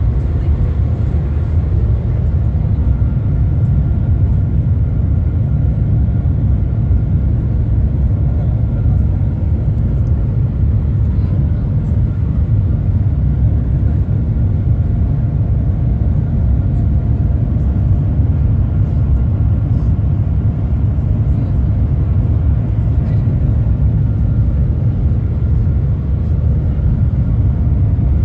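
Steady low rumble of the Shanghai Transrapid maglev train heard inside the passenger car while it cruises at its top speed of about 430 km/h, with a faint steady whine above the rumble.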